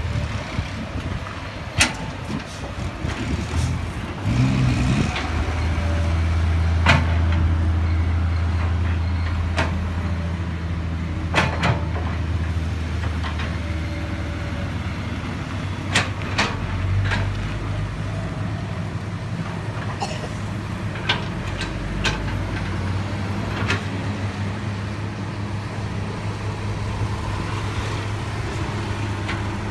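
Hydraulic excavator at work: its diesel engine runs steadily and gets louder and heavier about five seconds in, with sharp metallic clanks scattered throughout.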